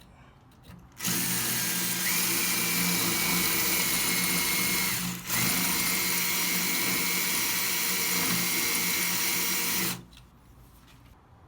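Power drill running in two steady runs of about four and five seconds, with a brief pause just after the halfway point. Its motor whine holds a steady pitch.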